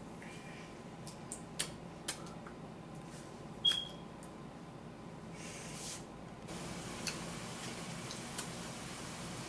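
Quiet room tone with a few scattered small clicks and taps, the sharpest about three and a half seconds in, and a brief soft rustle a little later.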